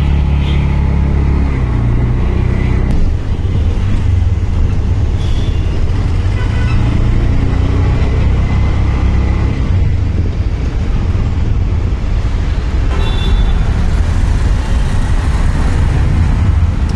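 Close road traffic with a loud, low engine drone. For about the first three seconds it holds a steady pitch, then it turns into a rougher, continuous rumble of motor vehicles such as auto-rickshaws and cars.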